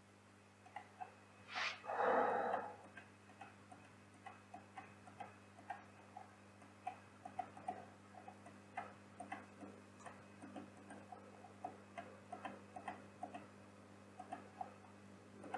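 Computer mouse clicks, scroll-wheel notches and keyboard key presses, close to the microphone, two or three small clicks a second at an irregular pace over a faint steady hum. A short, louder noise comes about two seconds in.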